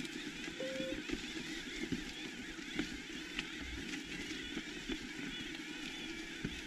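Electric mountain bike rolling over a stone-paved mule track: steady rolling noise from the tyres on the rough stones, with frequent knocks and rattles from the bike.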